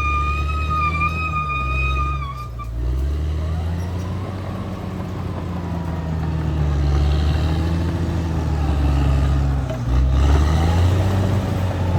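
Caterpillar D6R XL bulldozer's diesel engine running under load, its pitch dipping and rising again several times. A thin steady high tone sounds over it in the first two seconds.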